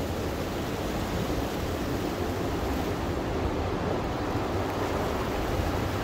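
Strong wind rushing steadily through tall pines and bare trees.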